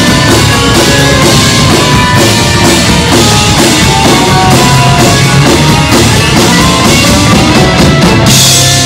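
Live rock band with alto saxophone, electric guitars, bass and drum kit playing a fast, busy tune. About eight seconds in, the drums end on a cymbal crash and the band holds a ringing final chord.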